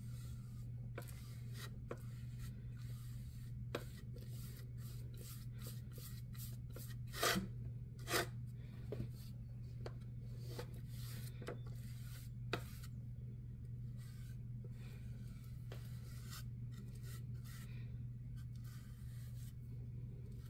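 Flat paintbrush stroked back and forth across a flat plaque, spreading white acrylic paint: a run of short rubbing strokes, with two longer, louder ones about seven and eight seconds in. A steady low hum runs underneath.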